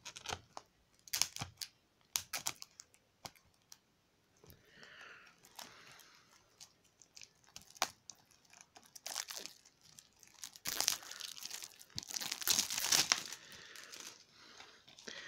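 Cellophane shrink-wrap on a DVD case being slit with a pocket knife and torn off by hand: sharp clicks and scratches at first, then bursts of crinkling and tearing plastic, loudest near the end.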